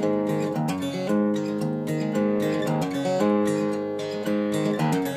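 Acoustic guitar strummed solo in a song's instrumental intro, the chords changing about once a second.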